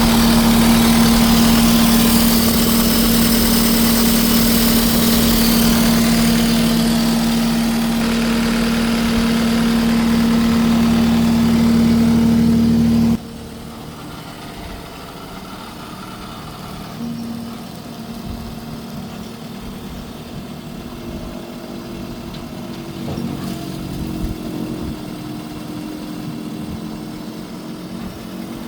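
Case SR220 skid steer's diesel engine running with a steady hum. A little under halfway through, the sound drops abruptly to a much quieter, lower engine running with faint tones that shift in pitch.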